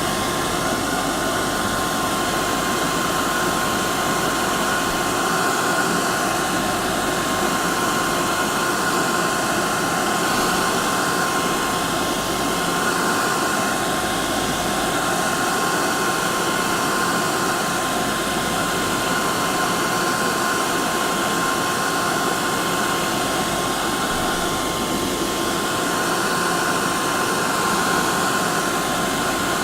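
Hair dryer running steadily, a loud even rush of air with a constant motor whine.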